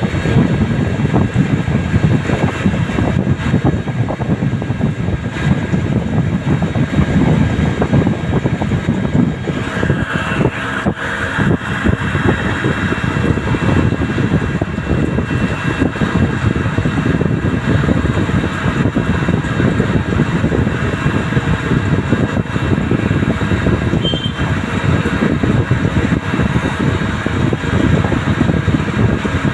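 CNC turret lathe turning a steel NPT thread plug under flood coolant: a steady rush of coolant spray over the running machine and cut, with faint steady whine tones above it. The sound brightens a little about ten seconds in.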